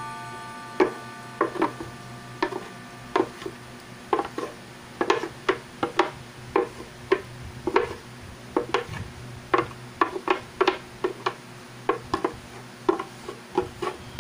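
A spoon knocking and scraping against the inside of a plastic blender jar, about two sharp knocks a second, as thick blended squash purée is scraped out into a bowl.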